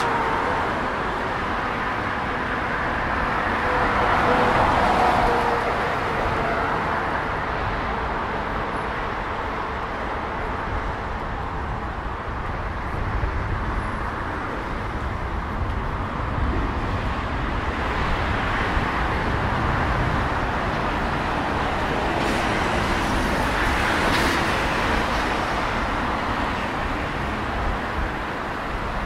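Road traffic going by: a steady wash of passing vehicles, with one vehicle passing louder about four seconds in and another later on.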